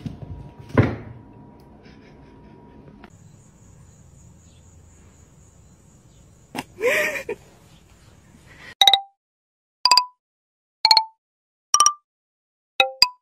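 A sharp thump about a second in, then a short rising-and-falling animal call, then a ringtone-style melody of ringing electronic notes, about one a second at first and quickening near the end.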